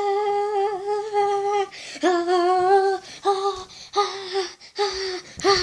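A girl's voice humming a long held note, then several shorter notes at about the same pitch, with a brief rattle near the end.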